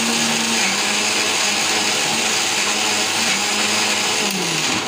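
Electric mixer grinder running at speed with its steel jar, grinding chutney; near the end the motor is switched off and its pitch falls as it winds down.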